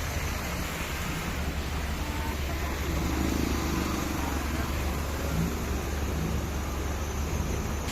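Steady low rumble and road noise of a moving road vehicle, heard from on board.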